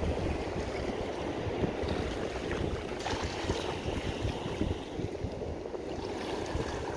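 Wind noise on the microphone over lapping shallow water, with a brief splash about three seconds in as a thrown cast net lands on the water.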